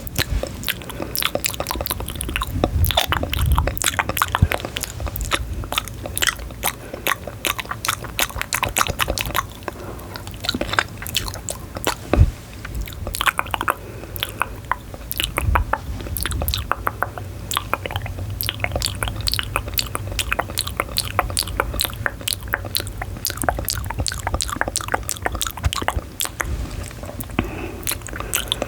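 Close-miked chewing and biting, with a dense run of small crisp crunching clicks at an uneven pace.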